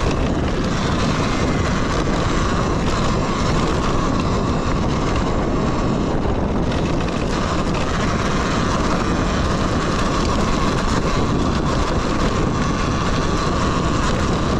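Talaria Sting electric dirt bike ridden at full throttle up a trail: a steady rush of wind and tyre noise with an even whine held at one pitch, and a few light knocks from stones.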